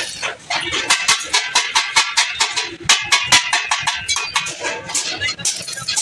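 Stick (arc) welding on sheet steel: the electrode arc crackles and spits in a dense run of sharp pops.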